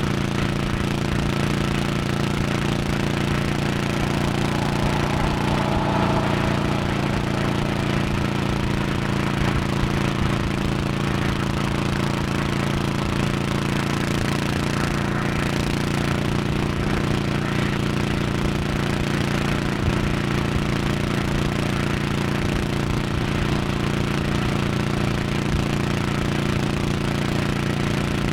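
1100cc Honda motorcycle engine running at steady highway cruising speed, its pitch holding level throughout.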